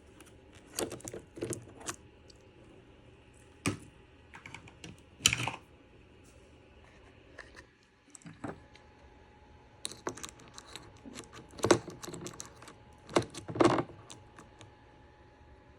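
Irregular clicks, taps and clattering knocks as a chainsaw's guide bar and chain are handled and fitted onto the saw's body.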